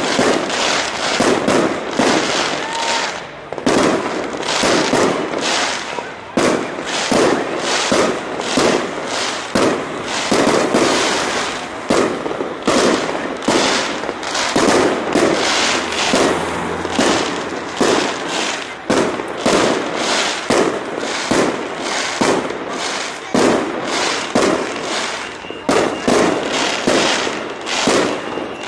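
Aerial fireworks display going off constantly: a rapid, unbroken run of bangs and crackles from bursting shells, several a second.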